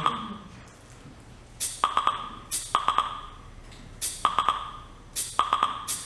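A repeating pattern of sharp clicks with a short ringing ping. It comes in about five quick groups, each led by a brief high hiss.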